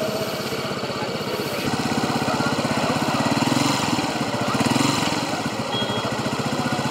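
Small single-cylinder motorcycle engine running close by with a rapid, even beat, getting louder about a second and a half in and swelling twice more near the middle, as if the throttle is blipped.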